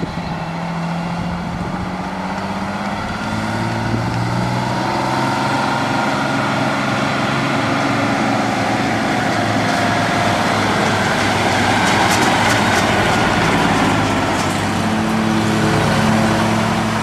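Detroit Diesel engine of a 1981 GMC Brigadier bucket truck running as the truck drives along, its pitch shifting slightly as engine speed changes.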